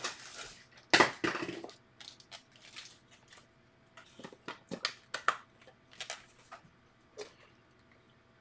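Objects being picked up and handled on a desk: a louder rustle and knock about a second in, then scattered light clicks and taps.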